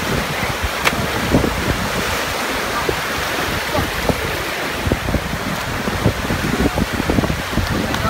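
Surf washing in and breaking over the shallows, with wind buffeting the phone's microphone.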